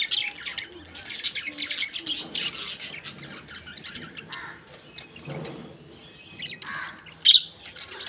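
A colony of budgerigars chirping and chattering continuously, with one loud, sharp squawk about seven seconds in.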